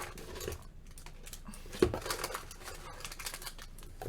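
Light clicks and rustles of snack packets and the snack box being handled, with one sharper knock about two seconds in.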